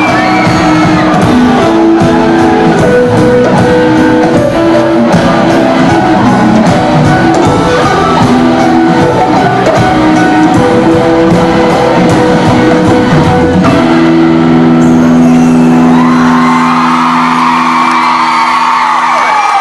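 Live rock band playing with electric guitar, keyboard and drums, with shouted vocals. Near the end the band holds one long chord while the crowd starts cheering and whooping.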